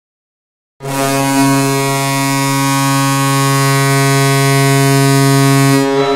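Syracuse Crunch hockey goal horn: one long, steady blast that starts about a second in, lasts about five seconds and cuts off just before the end.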